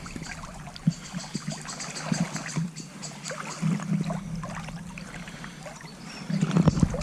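River water sloshing and splashing around waders as someone wades through a shallow river, with many small irregular splashes.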